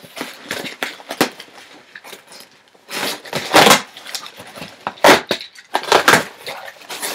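Box cutter slicing through the packing tape on a cardboard shipping box, then the cardboard flaps being pulled open and handled, with scrapes, taps and rustling. The loudest tearing and rustling comes about three to four seconds in and again about five to six seconds in.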